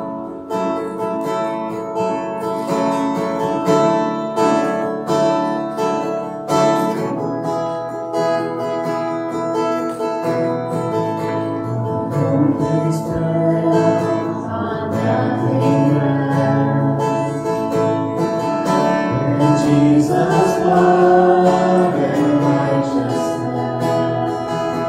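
Congregational worship music led by a strummed acoustic guitar, with voices singing along in the second half.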